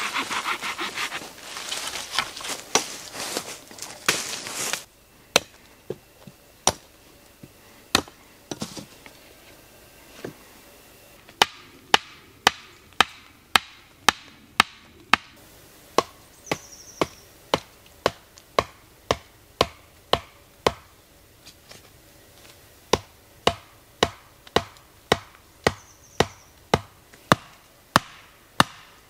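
Tarp fabric rustling as it is handled for the first few seconds, then the back of an axe head knocking a wooden stake into the ground. The blows come a few at a time at first, then as a steady run of about two a second.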